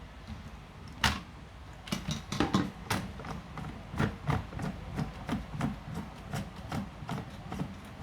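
Small spanner clicking and knocking against the plastic cap of a reverse osmosis membrane housing as the cap is worked loose. A sharp knock about a second in, a quick cluster of clicks, then a fairly even run of clicks about three a second.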